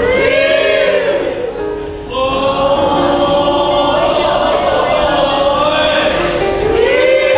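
Background music carried by a choir-like vocal melody of long held notes that swell up and fall away in pitch.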